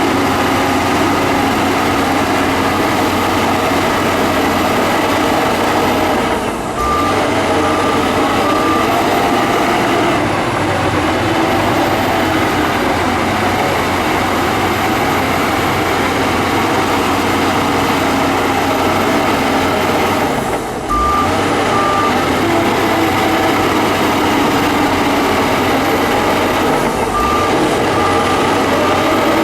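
Shantui bulldozer's diesel engine working hard and steadily. Three times its sound dips briefly, as at a gear change, and each time a short run of reversing-alarm beeps follows: the dozer backing up between pushes.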